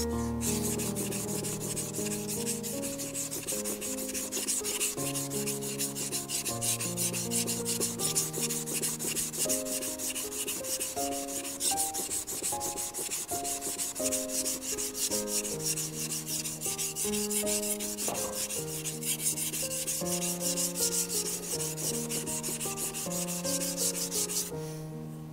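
Warikomi santoku kitchen knife being ground on a wet whetstone: a steady scraping rasp of quick back-and-forth strokes, stopping about a second before the end. Soft melodic background music plays underneath.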